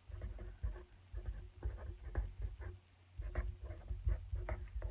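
Marker pen writing a word on a paper pad: a run of short, irregular scratchy strokes with soft knocks of the hand and pen on the pad.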